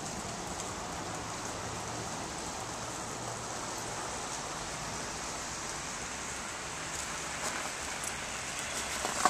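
Steady hiss of rain falling on icy pavement and cars, with a faint low hum in the first few seconds.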